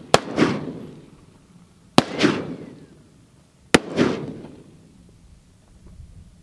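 Three shots from a scoped AR-style rifle, about two seconds apart. Each sharp crack is trailed a fraction of a second later by a rolling report that fades over about a second.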